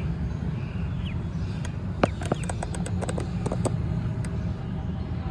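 Two ducklings paddling in a plastic tub of water: a run of small splashes and clicks about two seconds in, and a few faint short high chirps, over a steady low rumble.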